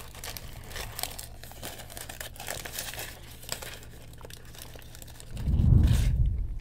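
A fast-food sandwich wrapper crinkling and rustling irregularly as a sandwich is unwrapped. Near the end there is a louder, low, muffled rumble close on the microphone.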